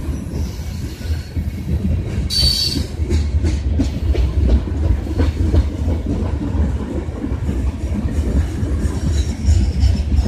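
Freight train's tank cars and covered hoppers rolling past close by: a steady low rumble with wheel clatter over the rail joints. About two seconds in, a brief high squeal from the wheels.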